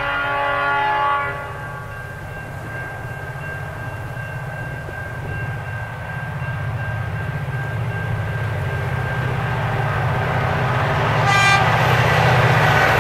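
Approaching diesel freight train led by locomotive CLF4. Its multi-tone horn ends about a second in, then the low engine rumble grows steadily louder as the train comes closer. A short second horn toot comes about eleven seconds in, just before the locomotives pass at full loudness.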